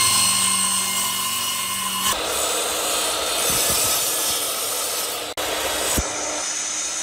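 Power tool working wood: a steady motor whine for about two seconds, then a rough, rasping noise as the tool bites into the wood, broken by a brief dropout about five seconds in.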